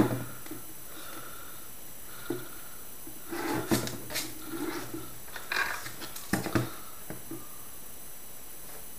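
Small tools and parts being handled on a hard tabletop: scattered light knocks and clicks, with a cluster of them a few seconds in and another pair a little over six seconds in.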